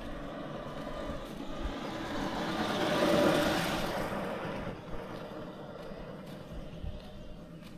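A motor vehicle passing by: its sound builds to loudest about three seconds in, then fades away.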